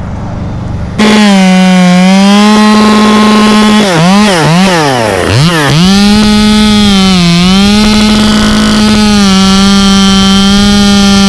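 Chainsaw running at high throttle, coming in suddenly about a second in. Its pitch sags several times in quick succession near the middle and once more later as the chain loads up cutting through the queen palm trunk, then holds steady.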